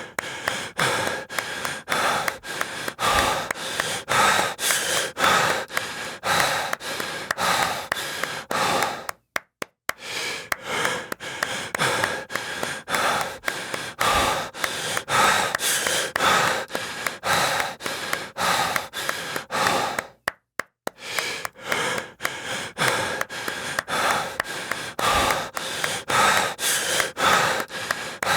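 Heavy, gasping breathing over a fast, regular run of hand claps. The sequence breaks off in a brief silence about 9 seconds in and again about 20 seconds in: a loop repeating roughly every 11 seconds.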